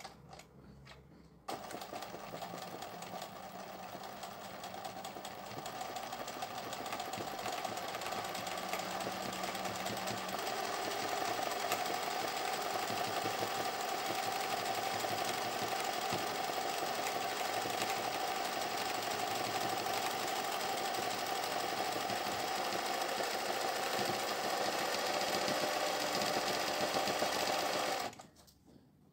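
Singer 20U industrial zigzag sewing machine running steadily, sewing a narrow satin stitch. It starts abruptly about a second and a half in, grows a little louder over the first several seconds, and stops suddenly just before the end.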